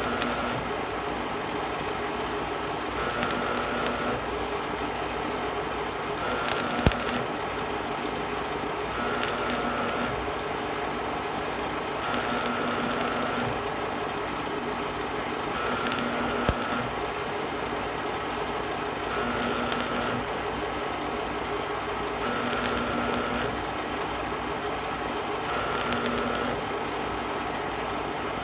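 Miller Thunderbolt 250 AC stick welder's arc crackling in short bursts of about a second, roughly every three seconds. This is stitch welding on thin plate, with the arc struck and broken again and again.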